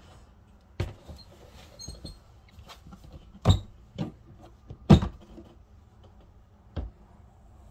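Latches of a black molded-plastic hard gun case being snapped open and the lid lifted: a string of sharp plastic clicks and knocks, the two loudest about three and a half and five seconds in.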